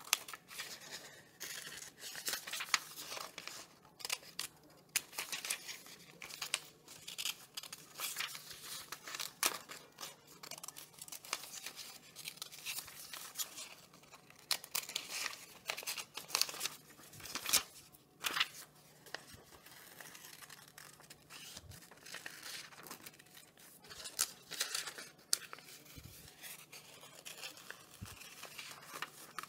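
Red-handled steel scissors snipping through a paper activity sheet in short, irregular cuts, following a zig-zag line, with the paper rustling as it is turned.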